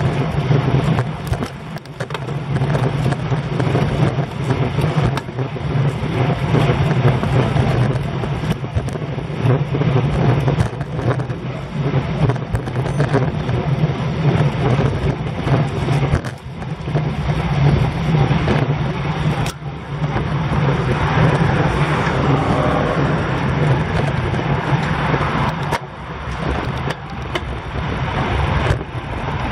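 Wind buffeting the microphone of a bicycle-mounted camera at road-riding speed, a loud steady rush with a rumbling low end that rises and dips, mixed with tyre and road noise.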